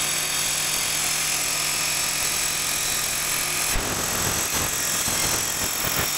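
Metal-cutting circular saw running under load as it cuts through half-inch steel plate, a loud steady cutting noise. About four seconds in, the steady hum gives way to a rougher, choppier sound.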